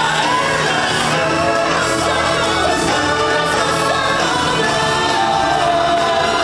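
Music with several voices singing together, choir-like, over a full accompaniment.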